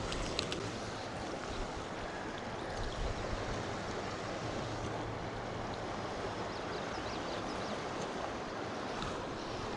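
River current rushing over a rocky riffle in a steady wash.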